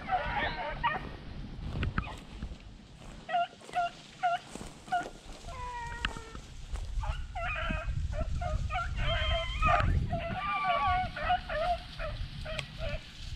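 A pack of beagles baying while running a rabbit. First comes a quick string of single short barks, then from the middle on several dogs give voice at once in overlapping yelps and barks.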